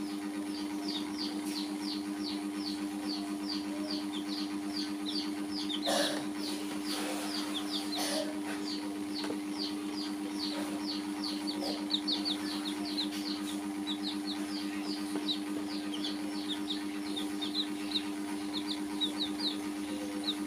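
Young chicks peeping continuously, short high chirps that fall in pitch, about three or four a second, over a steady low hum.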